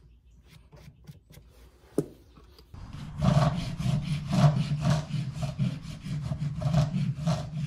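Farrier's rasp filing the hoof wall in rough back-and-forth strokes, about three a second, starting about three seconds in after a few faint clicks. The strokes put a bevel (chamfer) on the front part of the hoof wall so the shoe's cuff lies flat.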